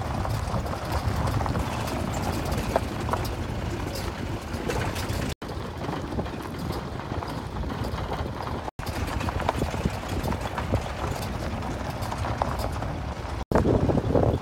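Safari jeep driving over a rough dirt forest track: a steady engine and road rumble with many small knocks and rattles from the bumps. The sound breaks off for an instant three times.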